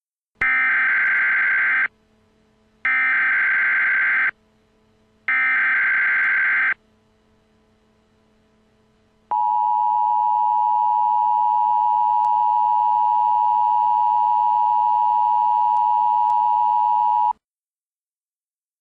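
Emergency Alert System tornado warning tones: three short bursts of warbling digital header data, each about a second and a half long, then the long, steady two-tone attention signal, which cuts off abruptly after about eight seconds.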